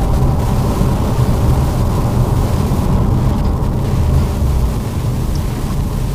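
Lada Vesta driving through heavy snow: a steady low rumble of engine and tyres, easing slightly near the end.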